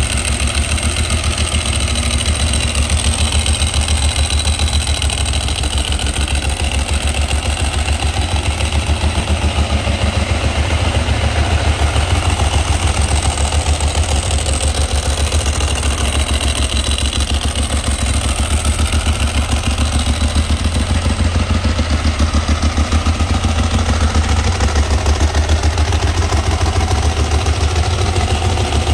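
Ducati 1198S's 1198 cc L-twin engine idling steadily through an Akrapovic exhaust, with an even, low-pitched beat.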